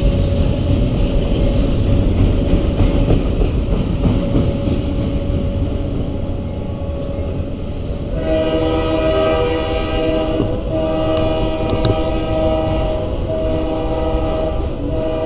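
Freight train of autorack cars rolling past close by, a heavy rumble of wheels on rails. About eight seconds in, a diesel locomotive horn starts sounding a chord in several long blasts with short breaks between them.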